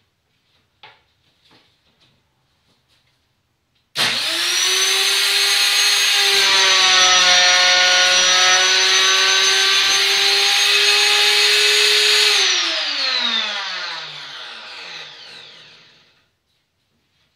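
Table-mounted wood router starting abruptly about four seconds in and running at full speed with a steady high whine as it cuts a slot in the board, then switched off and winding down with a falling pitch over a few seconds. A few light clicks of handling come before it starts.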